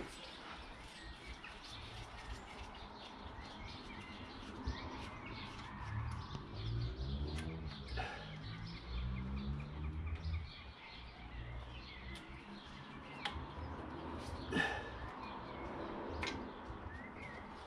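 Small clicks and taps of hand tools working in a car engine bay, a few times, over faint bird chirping. A low rumble comes in for a few seconds in the middle.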